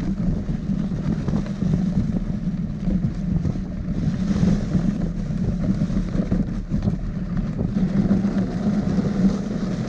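Steady running noise of a dog-drawn rig moving over a snowy road, with wind on the microphone.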